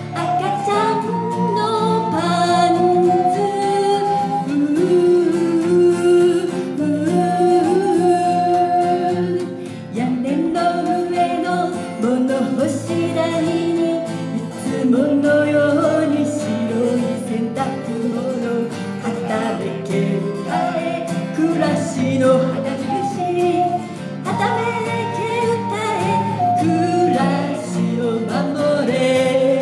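Live acoustic folk song in Japanese: a woman singing over two strummed acoustic guitars, with a harmonica playing along.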